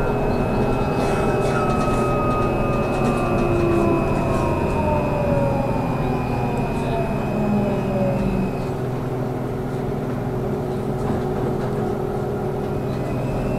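Trolleybus running, heard from inside: the electric traction motor's whine glides down in pitch over the first several seconds as the trolleybus slows, over steady road and cabin noise. A high steady tone stops partway through and returns near the end.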